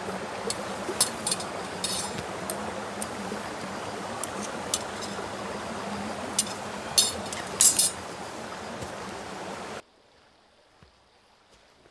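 Thin metal rods of a camp cooking rack clinking and tapping against each other as they are handled, a few light clicks, then a quick cluster of louder clinks. Under them a steady rushing background noise, which cuts off abruptly near the end, leaving near silence.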